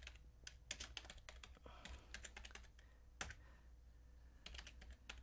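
Faint typing on a computer keyboard: irregular keystroke clicks in short runs with brief pauses, as a name is typed into a form.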